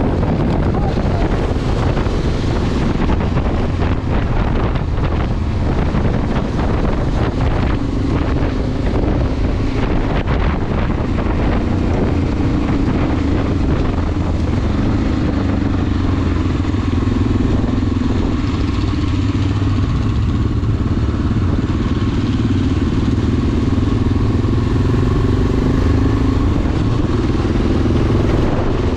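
Enduro motorcycle engine running while riding. Knocks and rattles come through in the first ten seconds or so, then the engine note holds steadier for the rest.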